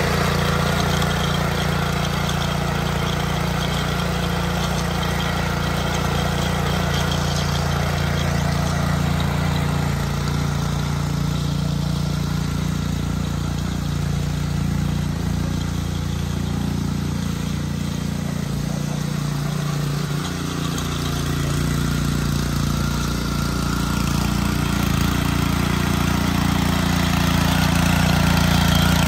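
Trâu Vàng mini tiller's 7 hp four-stroke OHV petrol engine running steadily; near the end it gets slightly louder as the tines churn through soil.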